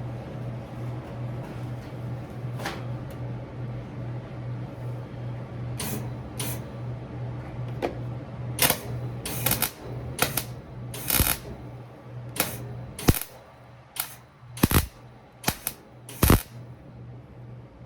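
Irregular sharp clicks and short bursts, sparse at first and then coming thick and loud in the second half, over a steady low hum.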